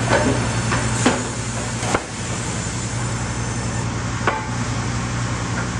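Sawmill conveyors and machinery running with a steady low hum, while hardwood boards knock sharply against the conveyors and chain transfers three times.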